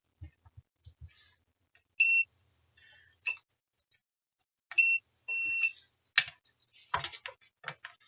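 Multimeter continuity buzzer beeping twice, each a steady high-pitched beep of about a second, the second one shorter: the meter signalling a short, near-zero resistance, between the probed points on the graphics card. Small clicks of probe tips and handling follow.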